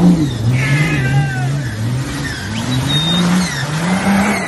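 Off-road buggy engine revving up and down over and over, about once a second, as the buggy churns through water and mud.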